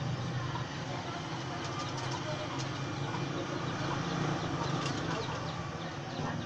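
Vegetable lumpia frying in oil in a wok: a steady sizzle with a low hum under it. Faint bird chirps can be heard in the background.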